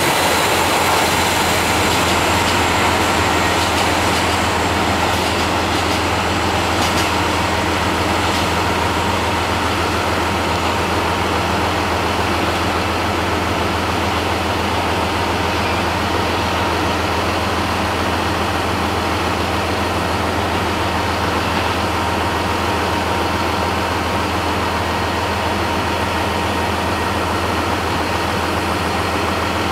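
KiHa 183 series diesel limited-express train pulling away, its diesel engines running under power in a steady low drone that fades only slightly. A few short clicks sound in the first several seconds.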